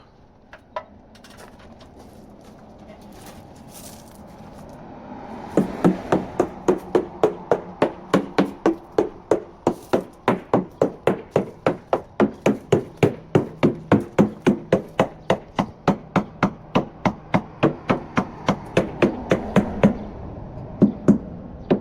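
Surveyor's hammer tapping along a fiberglass sailboat hull, a few scattered taps at first, then a steady run of about three or four light blows a second. It is a percussion test, sounding the hull for hollow, unsupported or delaminated spots as against solid areas backed by a bulkhead.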